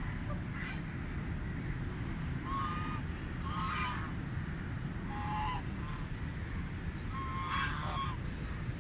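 Ducks quacking in short, nasal calls every second or two, some in quick runs, over a steady low rumble.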